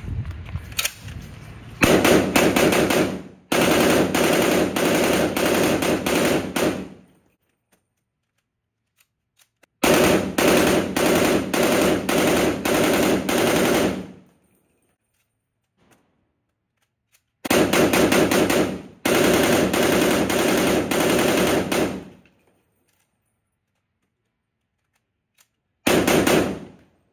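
POF CW39 rifle firing on full auto: long bursts of rapid shots with pauses of a few seconds between them. The last burst near the end is short and stops abruptly when the rifle has a failure to feed.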